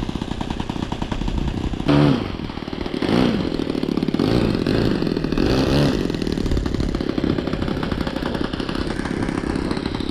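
A .70 four-stroke nitro model aircraft engine running at low throttle as the model biplane taxis on grass, with short throttle blips about two seconds in, again a second later, and once more around five to six seconds in.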